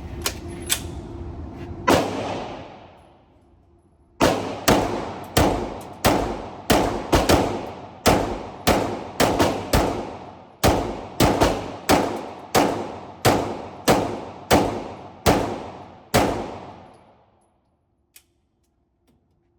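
Canik pistol firing a full magazine: one shot about two seconds in, then after a short pause about twenty shots at a steady pace of roughly two a second, each report trailing off in a short echo.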